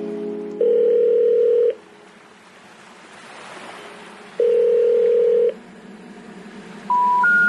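Telephone tones: a steady ringback-style tone lasting about a second sounds twice, a few seconds apart. Near the end come three short beeps rising in pitch, the special information tone that comes before a 'number not in service' intercept message.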